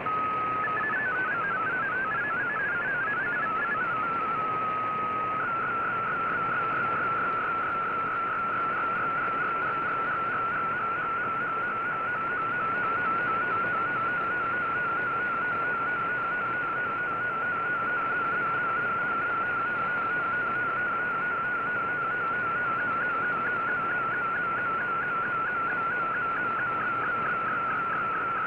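Shortwave radio reception of a digital-mode data broadcast: a warbling, rapidly shifting data tone over steady band hiss. About a second in, the tone hops between several pitches for a few seconds. From about five seconds in it settles into a fast, even warble that widens near the end.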